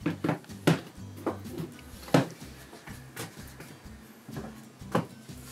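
A series of sharp knocks and clatters of dishes and cupboards being handled in a kitchen, about seven in all, the loudest about two seconds in, over quiet background music.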